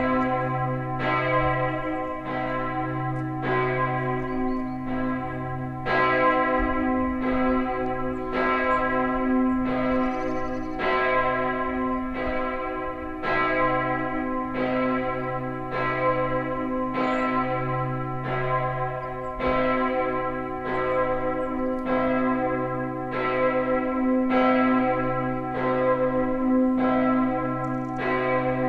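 Münsterschwarzach Abbey's bell 2, the 2,100 kg "Hl. Benedikt" bell tuned to c1 and cast in 1950 by Karl Hamm, tolling alone: the swinging bell is struck about once a second, each stroke ringing on into the next over a steady low hum. This is the Friday tolling for the hour of Jesus's death.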